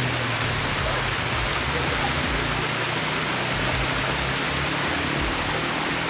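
Small waterfall cascading down rocks into a pool, a steady even rush of water.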